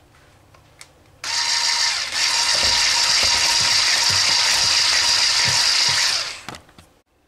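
Electric mixer with a wire whisk attachment whipping thick, hot milk pudding in a steel pot. It starts about a second in, runs with a steady whine for about five seconds, then stops.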